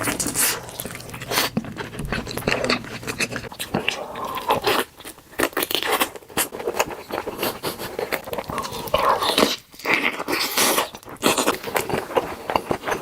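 Loud, close-up biting and crunchy chewing of BBQ fried chicken, with many irregular crackling crunches and a couple of short pauses.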